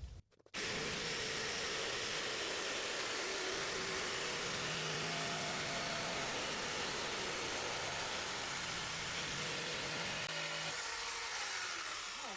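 Electric jigsaw running steadily as it cuts through a sheet of 8mm plywood, easing off near the end.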